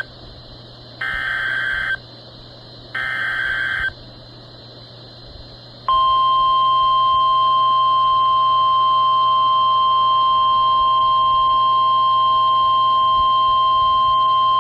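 NOAA Weather Radio EAS activation: two short bursts of SAME header data, a buzzy warbling screech lasting about a second each, two seconds apart. About six seconds in comes the steady 1050 Hz warning alarm tone, held for about nine seconds, signalling that a warning message follows.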